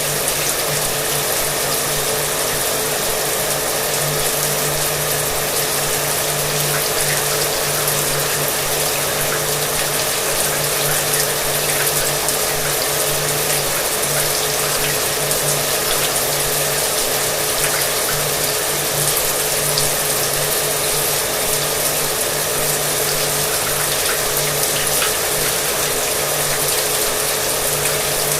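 Shower water running steadily, with a hair dryer running underneath: a constant hiss with a steady motor hum.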